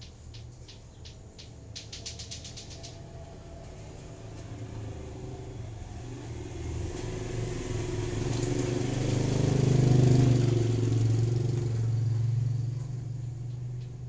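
A motor vehicle engine passes, growing louder to a peak about ten seconds in and then fading. Over the first three seconds there is a quick run of short, high ticks that speeds up near the end of the run.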